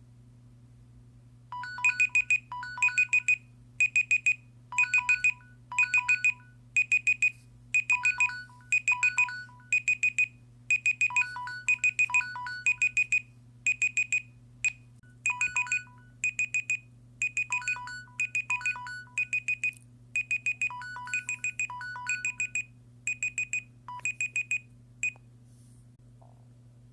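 Smartphone alarm ringtone: a melody of short electronic beeps in quick groups, about one group a second, starting about a second and a half in and stopping shortly before the end. A faint steady low hum runs underneath.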